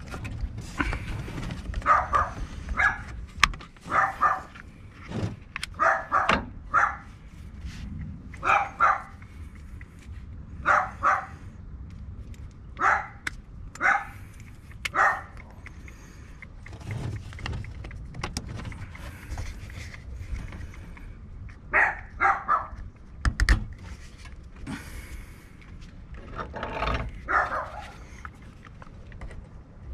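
A dog barking over and over, in short runs of two or three barks every second or two. Scattered light clicks run through it, and there is one sharp knock about two-thirds of the way through.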